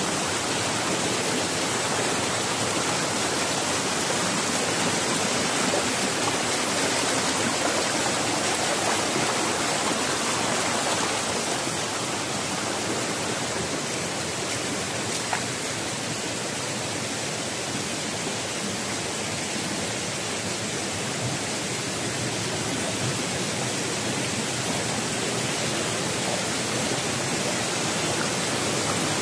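Rocky mountain stream running over boulders: a steady rush of water, a little quieter for a while midway.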